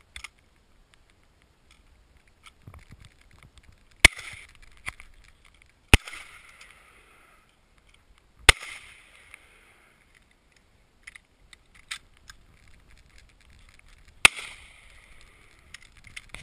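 Four gunshots, each followed by a short echo: the first about four seconds in, two more at roughly two-second gaps, and the last after a pause of nearly six seconds, with a few lighter clicks in between.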